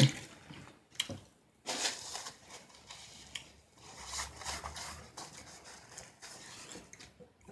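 Quiet handling and eating noises: a sharp click about a second in, then short rustles and small clicks as hands work food and a napkin.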